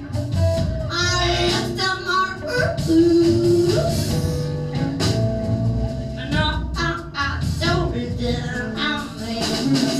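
Live band playing: electric bass and drum kit with cymbals, with a voice singing over them.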